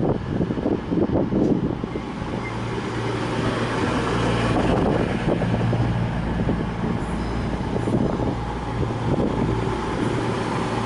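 CrossCountry Voyager diesel multiple unit running into the platform. Its underfloor diesel engines give a steady low drone under the noise of the train on the rails, which grows louder over the first few seconds as the carriages come past.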